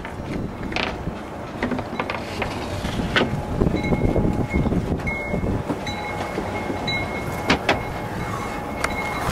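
Strong wind rumbling and buffeting against the microphone aboard a sailboat, with a few sharp knocks. A faint thin whistle comes and goes from about the middle on.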